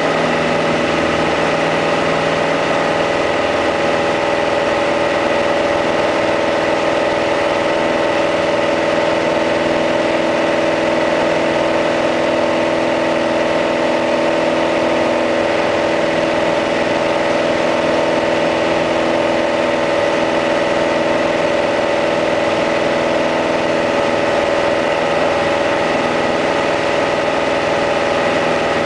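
Piper PA-28-180's 180-horsepower four-cylinder engine and propeller running steadily in the climb after takeoff, heard inside the cabin as a constant drone with no change in pitch.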